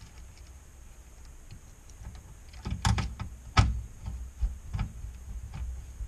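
A screwdriver driving a screw into a metal LCD monitor chassis: light ticks, then a run of sharp clicks and knocks, the loudest about three and a half seconds in, with scattered knocks after.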